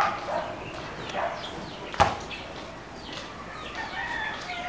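Birds calling, short chirps scattered through, with a single sharp knock about two seconds in.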